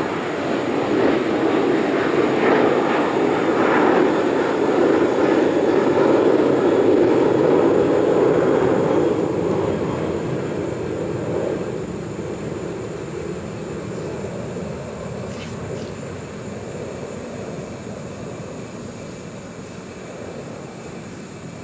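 A distant engine drone passing by: a steady rushing noise that builds to its loudest about a third of the way in, then slowly fades away.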